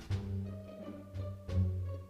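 Background music with bowed strings over a low bass line, new notes coming in about every half second.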